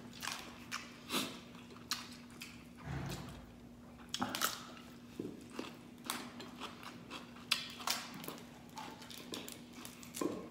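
Eating sounds while picking apart a cooked mud crab by hand: irregular clicks and crackles of crab shell being pulled and broken, with wet chewing and mouth noises.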